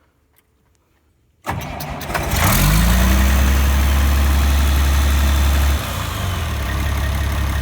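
International Harvester 1586 tractor's six-cylinder diesel engine cranked by its starter through a newly wired solenoid, catching within about a second and rising in pitch as it picks up. It runs loud for a few seconds, then drops back to a steadier idle near the end.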